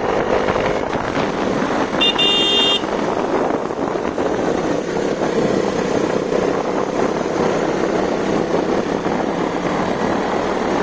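Steady engine and wind noise of a motorcycle riding along a road, with a short horn beep lasting under a second about two seconds in.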